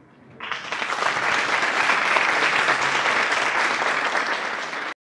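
Audience applauding, starting about half a second in and cutting off abruptly near the end.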